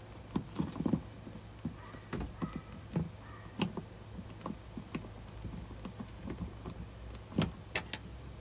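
Scattered small clicks, taps and rustles of hands working on wires and plastic parts in a Thetford cassette toilet's flush-pump compartment, with a couple of sharper clicks near the end. A faint steady low hum runs underneath.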